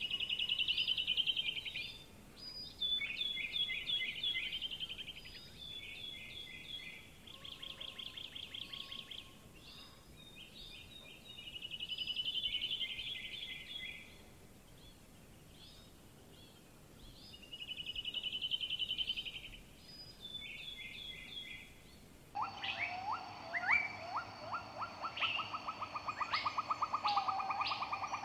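Birds chirping in repeated short, quick phrases. About 22 seconds in, the sound cuts abruptly to a different birdsong recording with lower, fast trills and scattered chirps.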